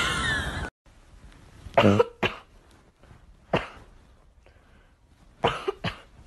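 Short, sharp coughs in three bouts about two seconds apart, two or three coughs at a time.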